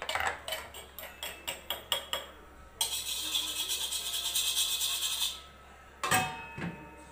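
A metal spoon clinking and scraping against a stone mortar (cobek), about four sharp taps a second, for the first two seconds. Then a steady hiss from the wok on the gas stove for about two and a half seconds. About a second before the end, a single ringing metal clank from the lid of a pot.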